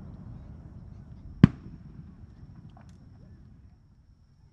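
A single firework shell bursting with one sharp bang about a second and a half in, over the fading rumble of earlier bursts, followed by a few faint crackles.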